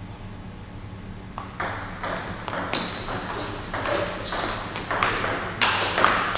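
Table tennis rally: a celluloid ball clicking off rubber-faced rackets and the table in quick, uneven succession. The clicks start about a second and a half in, after the serve.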